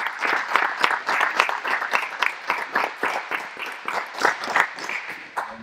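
Audience applauding with many hands clapping, thinning out and dying away near the end.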